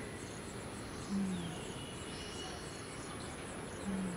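Open-air ambience with a steady background hiss and faint high chirping, likely birds. Two short low calls come through, about a second in and again near the end.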